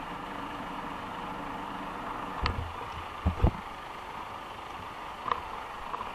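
Steady hum of an idling engine, with a few loud knocks and bumps from the camera being handled about halfway through.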